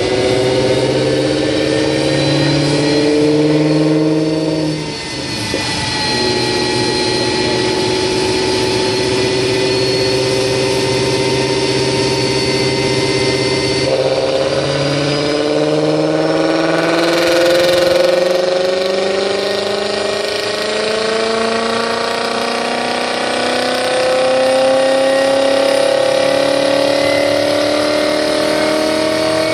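Volkswagen Passat B5.5's 4.0-litre 72° W8 engine, breathing through an aftermarket exhaust, running on a chassis dyno. The revs step up and dip briefly about five seconds in, then hold steady. Through the second half they climb steadily in a long pull, with a brief rush of noise partway through.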